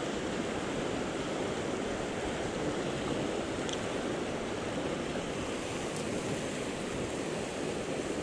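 Steady rush of river water running over rocks in shallow rapids.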